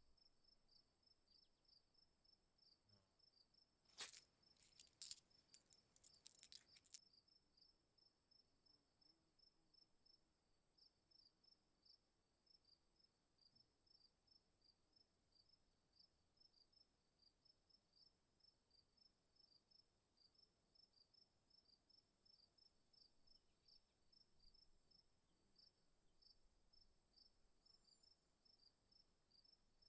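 Faint high chirping, evenly repeated several times a second, over a steady faint high whine. A short cluster of sharp clicks comes about four to seven seconds in.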